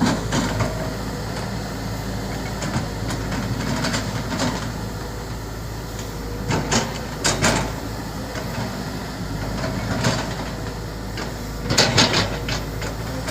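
Volvo EC200D excavator's diesel engine running steadily, with sharp metallic clanks from the machine's steel parts now and then, a cluster of them near the end.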